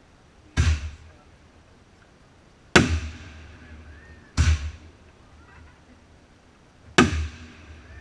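Aerial fireworks bursting: four sharp bangs, each with an echoing tail, spaced a second or two apart.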